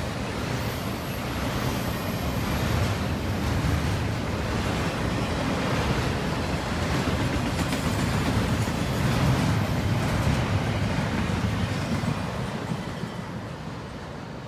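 Intermodal freight train's container cars rolling past on the rails, a steady low rumble that fades near the end as the last cars go by.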